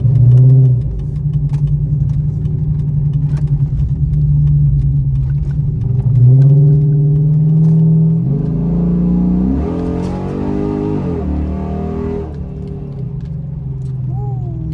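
Dodge Charger's Hemi V8 idling and being revved: a quick blip near the start, another rise a few seconds later, then a longer rev climbing and falling back to idle in the middle. It is running with the cylinder 8 misfire fixed by a replacement wiring harness.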